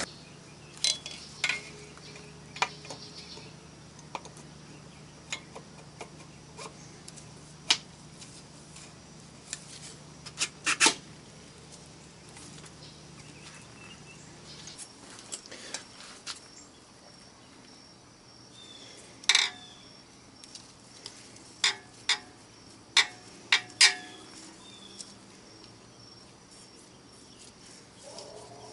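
Scattered metallic clicks and knocks from a piston and its band-type ring compressor being handled and worked into a cylinder bore of a Jeep engine block during an engine rebuild. The knocks are irregular, with a cluster of louder ones in the second half.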